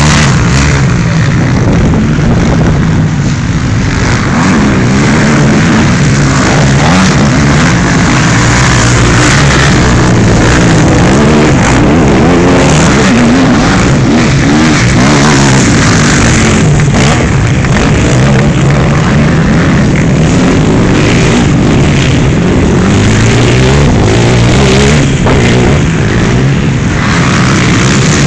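Off-road racing engines on a dirt track, loud and continuous, their pitch rising and falling over and over as the machines rev up and back off around the circuit.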